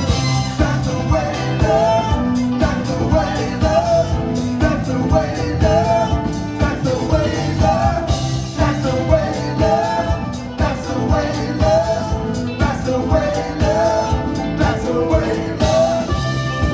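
Live band music: drums keeping a steady beat under electric guitar and bass, with a wavering melody line from violin and singing over it.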